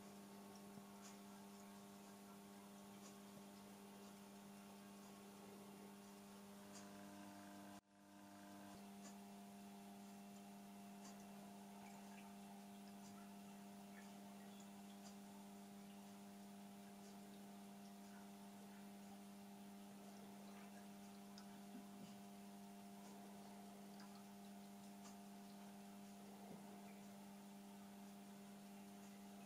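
Near silence with a steady low electrical hum that drops out briefly about eight seconds in.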